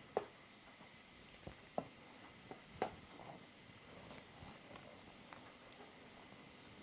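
Faint, scattered clicks and taps of a mixing utensil and cup as mochi flour and yam milk are worked into a dough, a few sharp ones in the first three seconds, the loudest about three seconds in, over a quiet room hiss.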